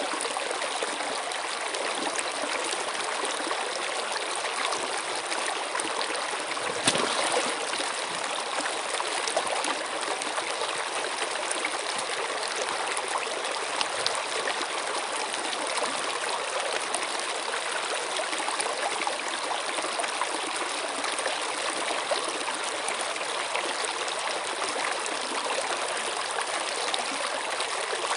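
Steady running water, like a stream, rushing and trickling without a break. About seven seconds in there is one brief louder splash.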